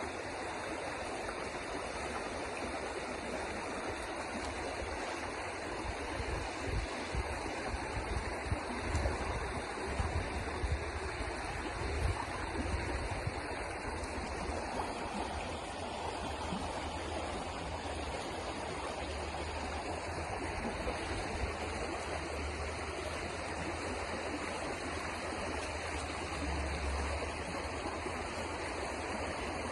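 River water flowing steadily, with some irregular low rumbles in the first half.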